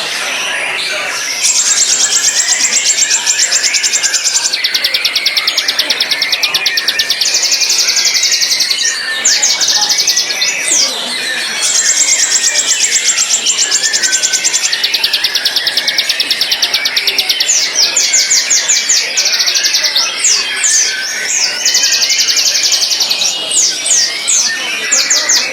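White-rumped shama singing: long, fast rattling trills of high repeated notes, each run lasting two to three seconds, broken by quick sweeping whistles. A softer warbling goes on beneath.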